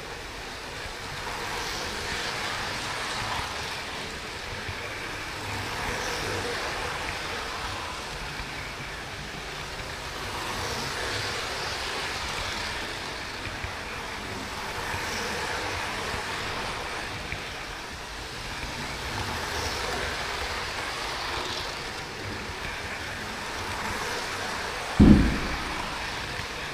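Model train running on its track, heard from a camera riding on it: a steady rolling rattle of wheels on rail that swells and fades every four or five seconds. A sharp thump sounds near the end.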